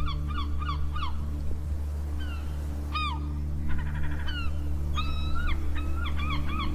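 Birds calling: quick repeated chirps, about four a second, give way about a second in to a mix of different calls and a short buzzy rattle, and the rapid chirping resumes near the end. A steady low hum runs underneath.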